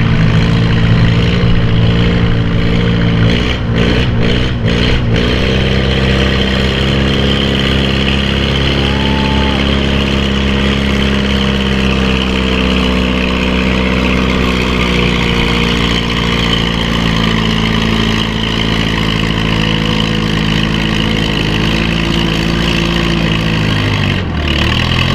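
Farm-class pulling tractor's engine running hard under load down the track. Its pitch sags slowly around the middle, then near the end drops sharply and climbs back.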